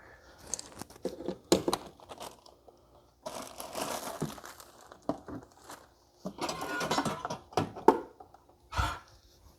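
Handling noise from the vacuum's charger and battery being set up for charging: plastic rustling and crinkling with scattered sharp clicks, two longer stretches of rustle, and a dull thump near the end.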